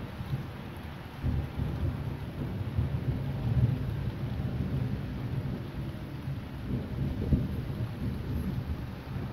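Thunder rumbling over rain: the low rumble swells about a second in, peaks a couple of seconds later and slowly eases off, with one short sharp crack late on.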